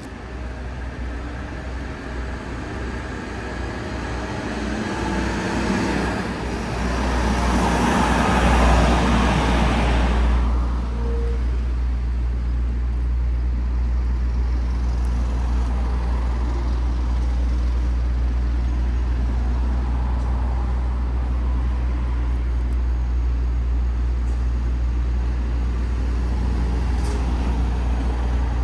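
Street traffic: a vehicle passes close by, growing louder to a peak about eight to ten seconds in, then fading, over a steady low rumble that carries on.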